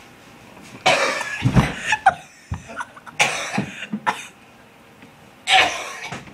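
A person coughing in three fits, about a second in, around three seconds and near the end, choking on a mouthful of dry ground cinnamon.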